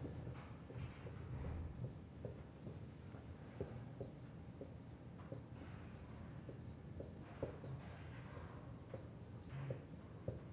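Marker pen writing on a whiteboard: a run of short, faint strokes and taps as numbers are drawn one after another.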